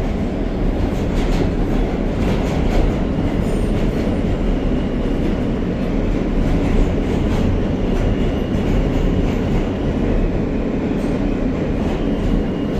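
Steady rumble of a New York City Subway R160A car heard from inside the car, with a few faint clicks in the first seconds.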